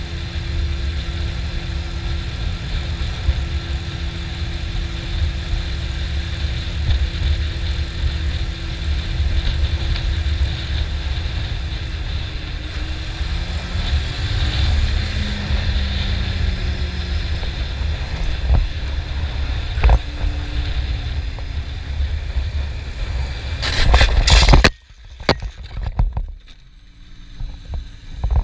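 Honda CB400 Super Four's inline-four engine running steadily at road speed. About 24 s in, a short burst of loud crash noise as the motorcycle goes down in a lowside, then the engine sound cuts off abruptly, followed by a few knocks.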